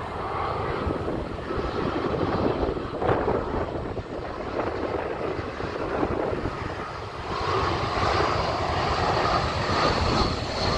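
Airbus A320 jet engines on approach, a steady rumbling jet noise that grows louder. About seven seconds in, a high engine whine comes in as the plane draws near.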